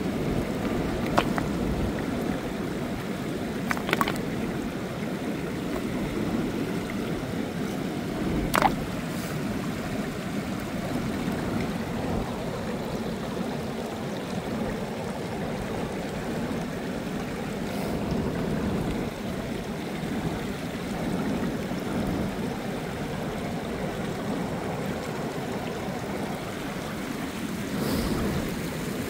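Ocean surf washing steadily on the beach, with water running and gurgling, broken by a few brief sharp clicks.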